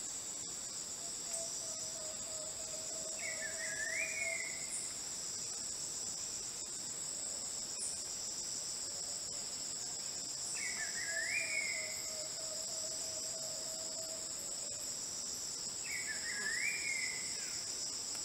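Rainforest ambience: a steady high-pitched chorus of insects. A bird repeats a short zigzag phrase three times, about every six seconds, and a long low whistle sounds twice.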